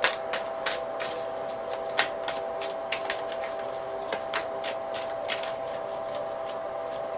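Tarot cards being shuffled by hand: irregular sharp card snaps and flicks, a few a second, over a faint steady hum.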